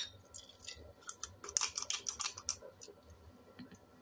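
Plastic pepper grinder twisted by hand, its grinding head cracking peppercorns in a quick run of dry clicks that starts about a second in and lasts about a second and a half.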